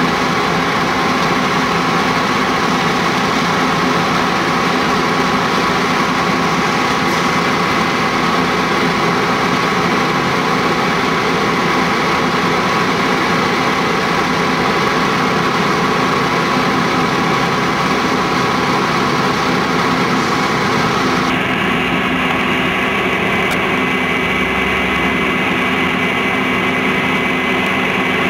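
Fire engine's engine running steadily while it pumps water to the hoses, a constant hum with several held tones. About three-quarters of the way through, the higher hiss drops away abruptly.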